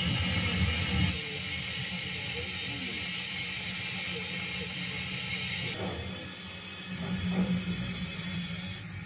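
Steam-era railway sounds of a train running: a steady low rumble with a hiss over it. The mix shifts abruptly about a second in and again about six and seven seconds in.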